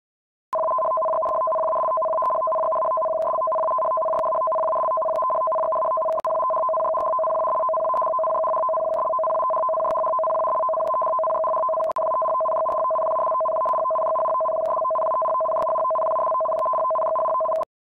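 Electronic emergency warning alarm: a steady, loud two-note tone held without change. It starts about half a second in, breaks briefly twice (about 6 and 12 seconds in), and stops just before the end.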